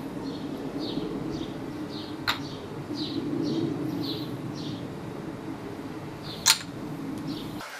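Two sharp wooden clacks of a Sweets Homegrown maple kendama's ball landing on the ken, one about two seconds in and a louder one near the end. Under them a small bird chirps over and over, and there is a low steady rumble.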